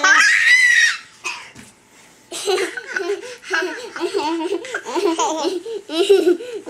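A young girl squeals for about a second, goes quiet briefly, then laughs in a long run of quick, high-pitched bursts.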